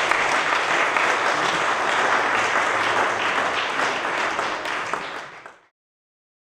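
Audience applauding: dense, steady clapping that thins slightly and then cuts off abruptly about five and a half seconds in.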